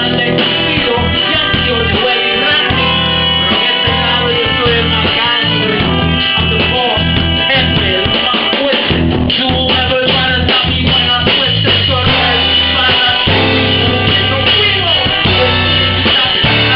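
Live salsa-style band playing with trumpets, violin, bass and drums, with a rapper's voice over a microphone.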